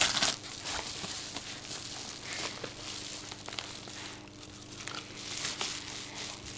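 Paper wrapping crinkling and rustling continuously as a dog noses and tugs into a package held open by hand.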